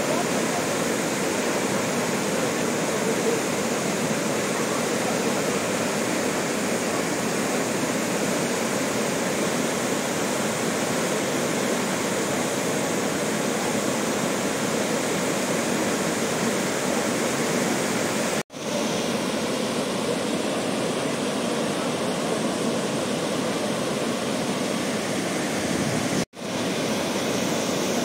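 White water pouring down a stepped concrete cascade with baffle blocks into a river: a steady, even rush of falling water. It breaks off for an instant twice, about two-thirds of the way in and again near the end.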